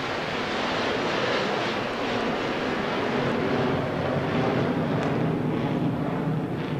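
Large stadium crowd cheering and applauding, a steady wash of noise.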